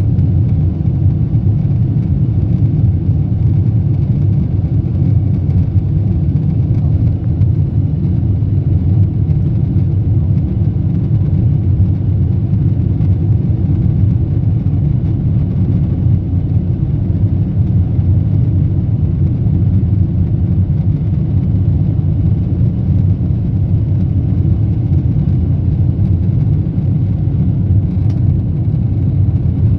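Steady low rumble inside the cabin of a Boeing 747-8 airliner descending on approach: engine and airflow noise heard from a window seat.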